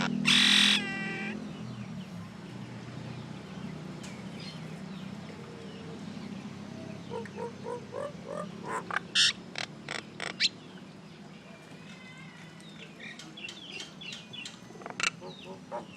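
Common myna calling: a loud, harsh screech just after the start, then a run of short chattering notes and sharp clicks, and later a few whistled gliding notes.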